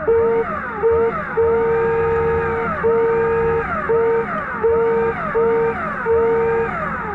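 Underwater scooter's motor heard through the water, whining in rising and falling pitch sweeps, with a steady tone that cuts in and out about eight times.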